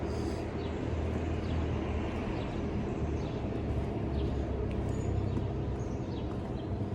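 Steady low rumble of distant traffic, with short bird chirps every second or so.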